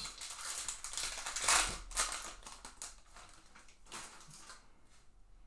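A stack of Bowman Sapphire baseball cards being slid and shuffled in the hands, a run of dry rustling and scraping strokes, loudest about one and a half to two seconds in, then fading out near the end.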